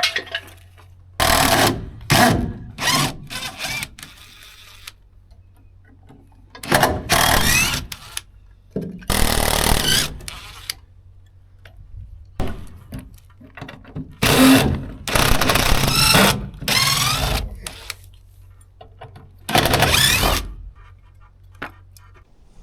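Tool working a stuck bolt loose in about six separate loud bursts of a second or so each, with a squealing edge, over a steady low hum.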